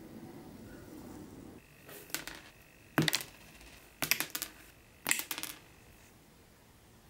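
Four sharp clicks about a second apart, each trailing into a short rattle of smaller ticks: clear plastic headlight lenses snapping into a small powder-coated metal toy bumper.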